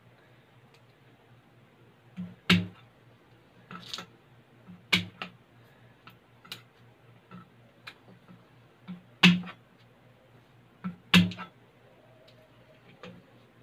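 Cleaver striking garlic cloves on a plastic cutting board: a string of irregular sharp knocks, a second or two apart, with three louder strikes.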